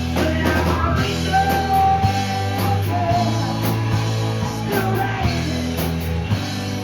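A live band playing a rock song, with a drum kit, a steady bass line and guitar; a melody note is held for nearly a second about a second in.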